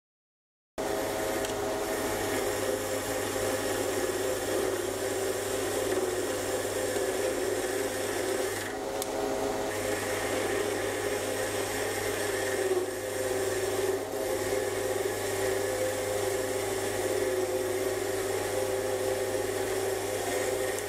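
Sieg C3 mini lathe running under a turning cut, a high-speed steel tool cutting a cold rolled steel bar, with a steady motor hum. It starts about a second in and holds steady, dipping briefly a few times.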